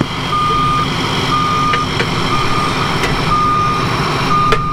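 Reversing alarm on a New Holland FR9060 self-propelled forage harvester, beeping steadily about once a second over the running engine as the machine backs up to the wagon hitch. A single sharp knock sounds near the end.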